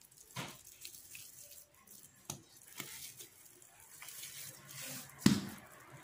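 Hands working soft bread dough on a granite countertop, pinching off and rounding small balls: faint squishing and light taps, with one sharper knock about five seconds in.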